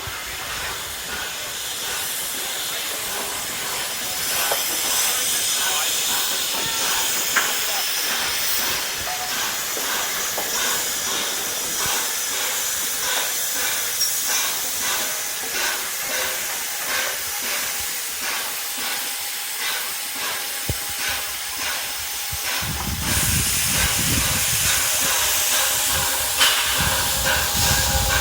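Steam hissing from the steam locomotive 60163 Tornado, a three-cylinder Peppercorn A1 Pacific, steady throughout with scattered light knocks. A louder low rumble joins about five seconds before the end.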